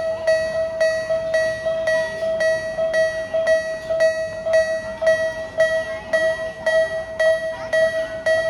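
Japanese-style railroad crossing warning bell on a miniature railway, ringing steadily with an evenly repeated electronic 'kan-kan' strike a little under twice a second.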